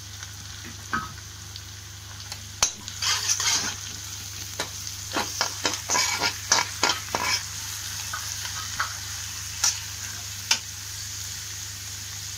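Chopped onions, green chillies and garlic sizzling in hot oil in a kadai while a metal spatula stirs and scrapes the pan. A run of quick scraping strokes comes in the middle, with a few single clinks of the spatula later.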